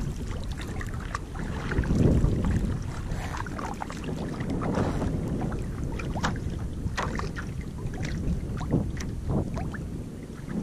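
Water lapping and splashing against the hull of a small boat, with many short sharp splashes, under a steady low rumble of wind on the microphone.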